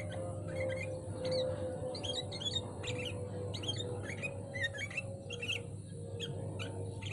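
Sooty-headed bulbuls singing: a rapid, unbroken run of short chirps and whistles.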